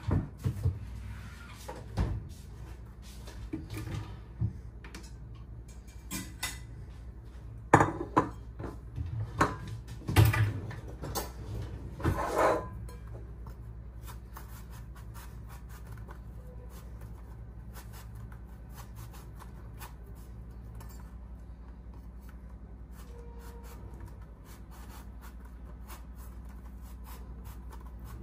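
A series of knocks and clatters of objects being handled and set down, over about the first dozen seconds, then only a low steady hum.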